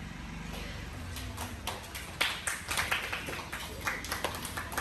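Irregular sharp slaps and taps of two judoka grappling on foam judo mats: bare feet slapping and shuffling on the mats and hands snapping at the cotton judogi. The slaps come thickest in the middle and run over a steady low hum.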